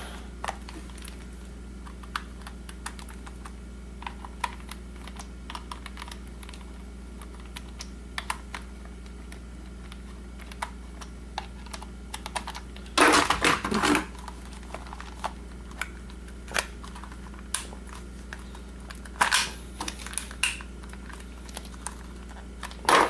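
Scattered light plastic clicks and taps as a counterfeit PS3 DualShock 3 controller is unscrewed with a small Phillips screwdriver and its plastic shell pulled apart, with a louder rattling clatter about thirteen seconds in.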